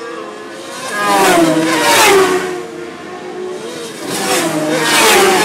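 Road-racing motorcycles passing at full speed in two bunches about three seconds apart, several engines at once, each engine note falling in pitch as the bikes go by.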